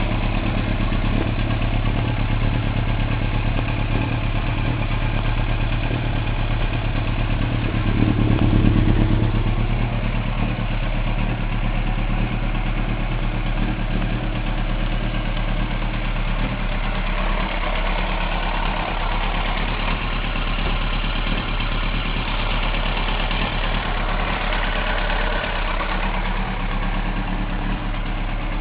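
1999 Yamaha YZF-R1's 998 cc inline-four engine idling hot, with the noise the owner hears only when the engine is warm and cannot identify. It runs briefly louder about eight seconds in.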